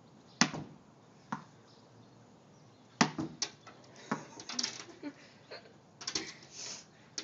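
Sharp knocks and rattles on a sliding glass door: a few single taps, then a quick run of them about six seconds in, as a dog jumps up and paws at the glass from inside.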